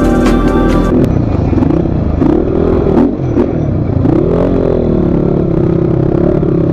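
Motorcycle engine revving up and down on a rough dirt trail, the pitch rising and falling with the throttle, with a few sharp knocks and clatter from the bike. Background music cuts off about a second in.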